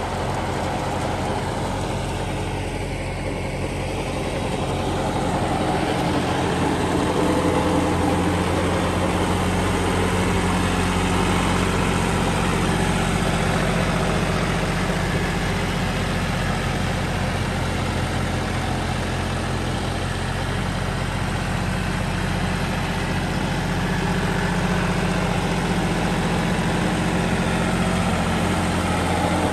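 John Deere tractor's diesel engine running steadily under load as it pulls and drives a super seeder (a rotary-tiller seed drill) sowing wheat. It gets a little louder after about six seconds.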